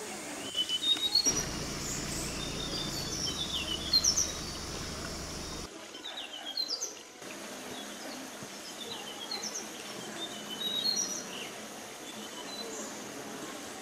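Forest birds calling, many short high chirps and whistles throughout. A low steady hum is heard from about a second in and stops abruptly about six seconds in.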